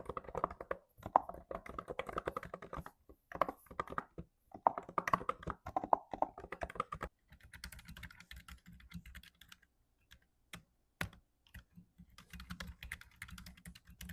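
Typing on a computer keyboard: fast, continuous keystrokes for about the first seven seconds, then lighter, sparser keystrokes with a few single key presses, and a short run of typing again near the end.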